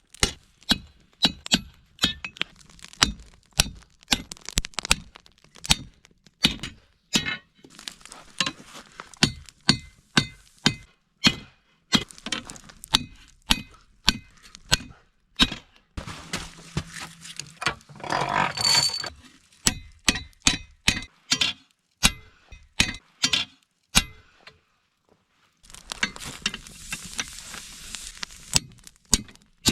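Hammer blows on heated leaf spring steel at the anvil, hand forging a knife blank: sharp metallic strikes with a short ring, about two to three a second, broken by brief pauses. Near the end the strikes give way to a few seconds of steady rushing noise.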